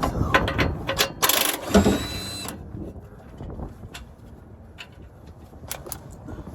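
Metal hand tools clicking and clinking as a ratchet and wrench work on bolts under a pickup, busiest in the first two and a half seconds, then a few scattered clicks.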